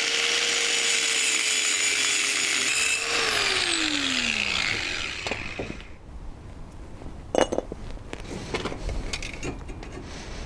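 Handheld angle grinder cutting the flange off a steel exhaust downpipe with a steady high whine. After about three seconds the trigger is released and the motor winds down, falling in pitch. Then come scattered metallic knocks and scrapes as the cut pipe is handled, with one sharp clank in the middle.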